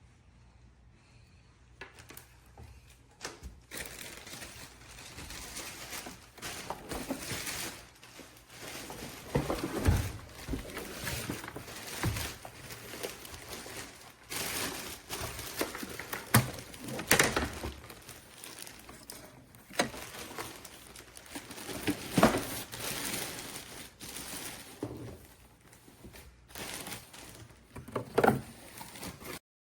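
Irregular rustling and crinkling with repeated knocks and thuds, like objects or packaging being handled.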